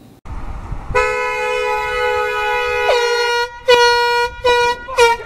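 Horns honking back and forth: a long held two-toned blast of about two seconds starting about a second in, then a string of shorter honks.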